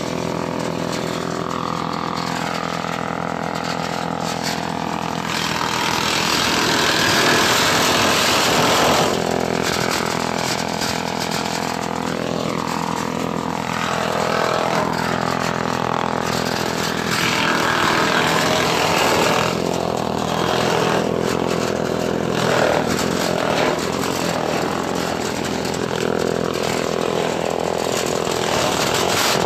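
Engine-driven grass chopper running steadily, with several louder, rougher stretches of noise, the first about six seconds in.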